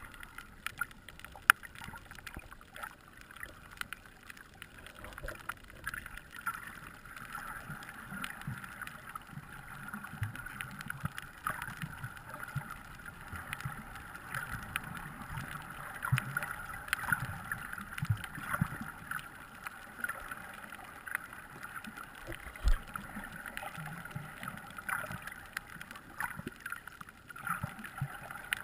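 Underwater sound picked up by a camera in a sealed housing: a steady, muffled wash of water with many scattered clicks and crackles. There is one louder knock about two-thirds of the way through.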